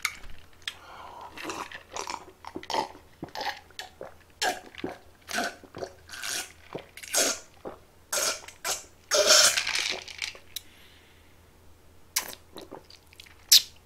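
A person gulping down a glass of drink in steady swallows, about two a second, stopping about ten seconds in; a few short mouth clicks near the end.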